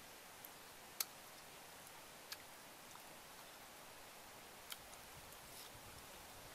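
Near silence broken by a few sharp clicks, the loudest about a second in.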